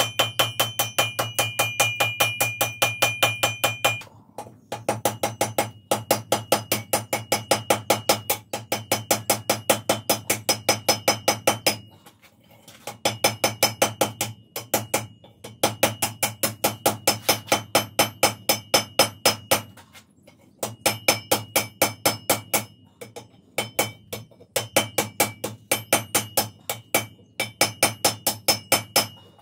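Hand hammer striking red-hot wrought iron on an anvil and then on a pointed stake anvil, forging it, at about four blows a second in runs of several seconds with brief pauses. The anvil rings clearly in the first few seconds, over a steady low hum.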